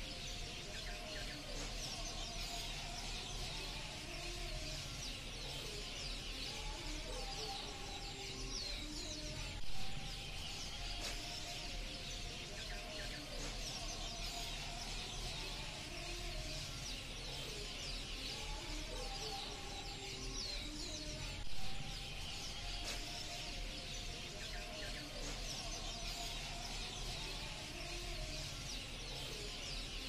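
A flock of swiftlets twittering: a dense, continuous chatter of short, high chirps, with lower wavering calls beneath. Two brief louder sounds stand out, about ten seconds and about twenty-two seconds in.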